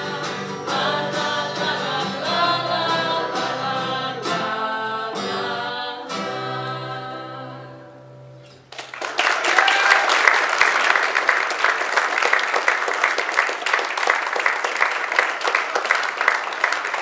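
An acoustic band's song ends: several voices singing together over acoustic guitars, closing on a held chord that fades out about eight seconds in. Then the audience breaks into applause, louder than the music.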